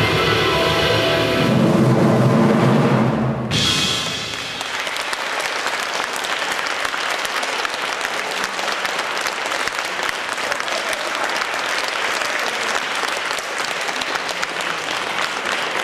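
A jazz trio of piano, double bass and drum kit ends a piece on a held final chord that cuts off about three and a half seconds in. The audience then applauds steadily.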